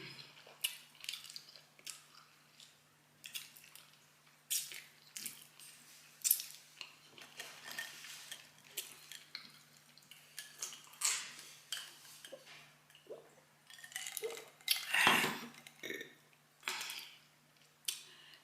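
Close-miked eating of ribs: irregular mouth smacks and wet chewing clicks, with light clinks and rattles from the plate and utensils, and one louder, longer noise about fifteen seconds in. A faint steady hum runs underneath.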